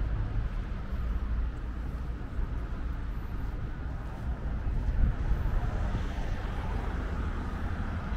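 Outdoor city background: a steady low rumble, with a slight swell about five seconds in.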